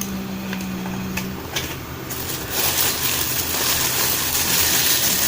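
Rustling of the shoe packaging being handled, a dense hiss that starts about two seconds in and grows louder, with a steady low tone during the first second or so.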